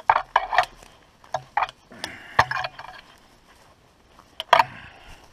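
Empty aluminum cans clinking and rattling as they are picked up and handled: irregular sharp clinks in small clusters, the loudest about two and a half seconds in and again about four and a half seconds in.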